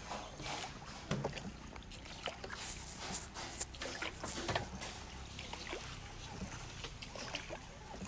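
Small rowed boat moving through shallow water: oars dip and splash in irregular strokes, louder in the first half, over a low steady rumble.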